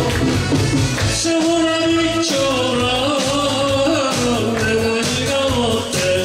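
A man singing a song into a microphone over band accompaniment with a drum kit, holding long notes.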